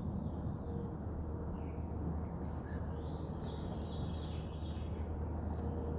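Small birds chirping in the forest, most clearly around the middle, over a steady low rush of background noise, with a few faint taps.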